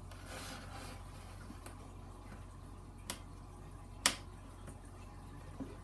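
Light rustling as a pinned-together black board model box is handled, then two sharp clicks about a second apart, the second louder, and a fainter one near the end.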